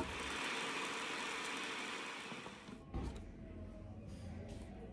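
Electric food processor running, chopping garlic cloves and green herbs with oil into a seasoning paste; the noise slowly dies away over about three seconds. A single knock follows as the bowl is handled.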